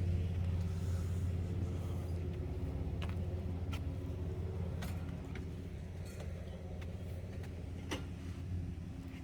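A steady low mechanical hum like a motor running, with scattered light clicks and taps on top.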